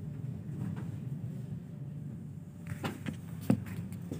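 Steady low hum of an underground station hall, with a few sharp knocks in the second half, the loudest about three and a half seconds in.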